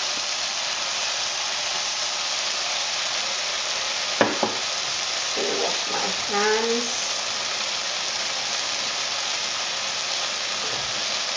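Raw chicken pieces and an onion, tomato and spice mixture sizzling steadily in a pot on the stove, with a single knock about four seconds in.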